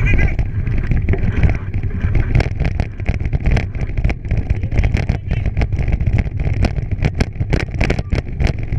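Wind buffeting the microphone and a bike rattling over rough trail as dogs pull it along, with many sharp clicks and knocks from about two seconds in.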